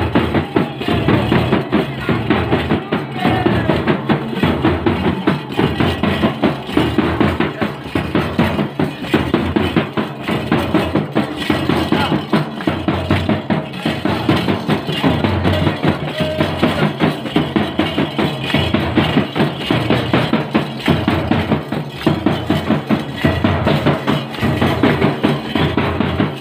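Hand-played drum with a metal shell beaten in a fast, unbroken dance rhythm, many sharp strokes a second without a pause.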